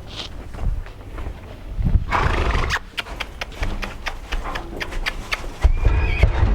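A weanling colt's hooves clopping in a run of quick, sharp steps, with a louder rushing noise about two seconds in.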